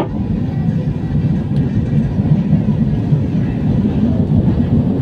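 LRT-1 light-rail train running between stations, heard from inside the car as a steady low rumble with a faint steady high tone above it.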